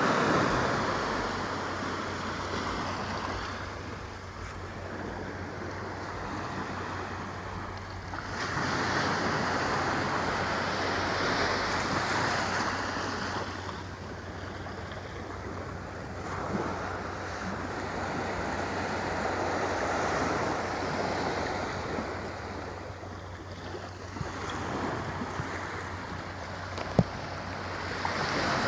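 Ocean surf: waves breaking and washing up the shore, swelling and fading in surges several seconds apart. A single sharp click comes near the end.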